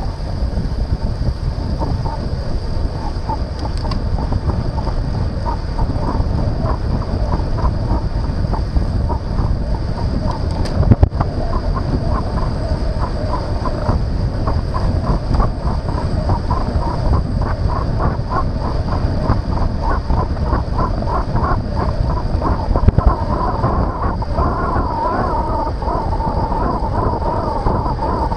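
Wind buffeting the microphone of an action camera on a moving road bike, heard as a heavy, steady rumble with road noise. A faint rhythmic ticking runs underneath, and a single sharp knock comes about eleven seconds in.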